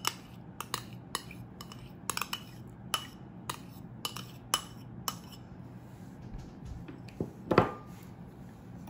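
A metal spoon clinking and scraping against a porcelain bowl and a glass food-processor bowl as soft butter is scooped out of one and into the other. It makes a run of sharp clinks, about two a second for the first five seconds, then a few sparser ones and one louder knock about seven and a half seconds in.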